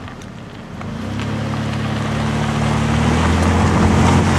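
A vehicle engine running with a steady low hum over a rush of road and wind noise, growing louder and edging up in pitch as it picks up speed.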